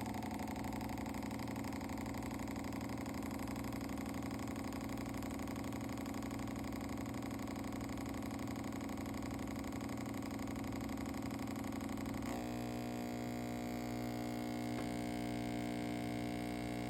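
DeLonghi Magnifica S espresso machine's water pump running with a steady hum as water is pushed through on a test run, its tone shifting about twelve seconds in. The run is not going right, and the repairer later finds it didn't work.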